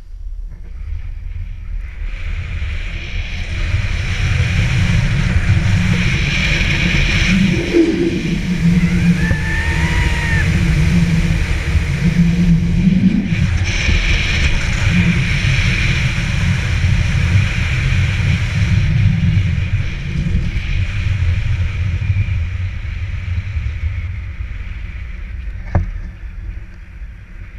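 Wind rushing over a GoPro's microphone and skis running through snow on a fast downhill run, building over the first few seconds and easing off toward the end. One sharp knock near the end.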